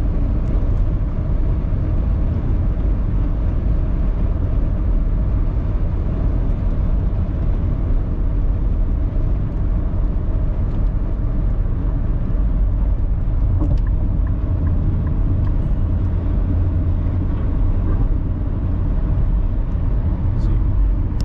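Steady low rumble of a car cruising at highway speed, engine and tyre noise heard from inside the cabin.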